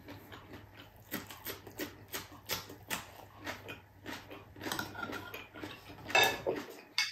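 Close-miked chewing of a raw cucumber slice: a run of crisp crunches and wet mouth clicks, with a louder smack about six seconds in.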